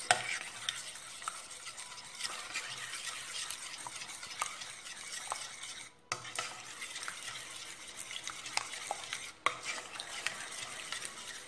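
Instant coffee with a little water being beaten briskly by hand in a stainless steel cup, a steady scratchy stirring with many small clinks of the utensil on the metal, whipping it into a caramel-coloured foam. The sound breaks off briefly about halfway through.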